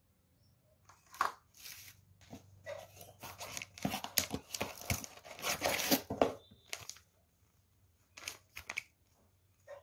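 Packaging being handled and torn by hand, a busy run of rustling, crinkling and tearing that starts about a second in, then a few short crackles near the end.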